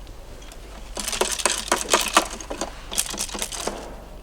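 Loose plastic car body parts being handled and shifted against each other: a quick run of clacks, rattles and crinkling that starts about a second in and dies away near the end.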